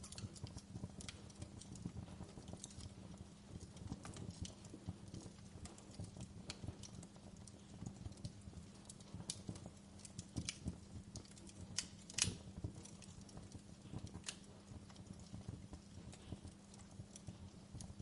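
Wood fire crackling: irregular sharp snaps and pops over a low steady rumble, with one louder pop about two-thirds of the way through.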